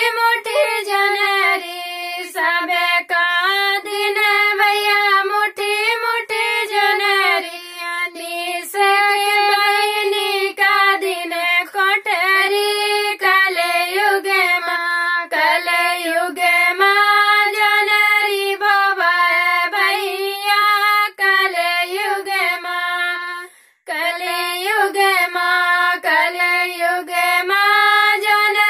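Two women singing a Bagheli gari geet folk song together without instruments, their voices moving on one melody line. The singing stops briefly for a breath about 24 seconds in.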